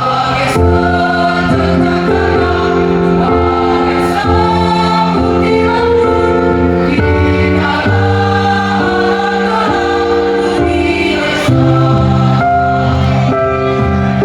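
Choir singing in harmony, holding sustained chords over a keyboard accompaniment.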